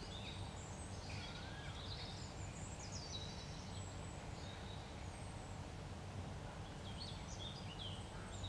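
Faint birds chirping on and off, short rising and falling calls, over a steady low background hum.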